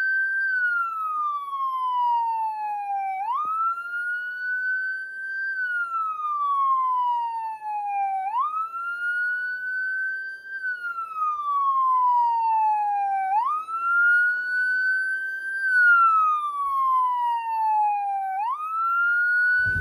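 Whelen electronic siren sounding a wail. Each cycle is a quick rise in pitch, then a slow fall, and it repeats about every five seconds.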